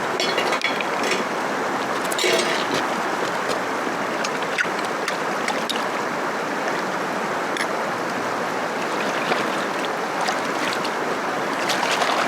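Cossatot River flowing, a steady rush of moving water, with a few faint ticks over it.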